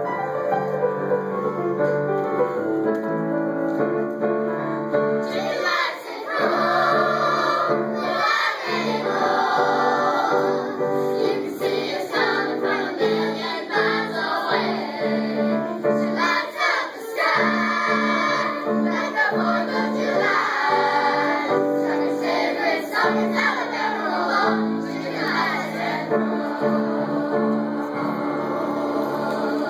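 Children's choir singing with piano accompaniment. The piano plays alone for about the first five seconds before the voices come in.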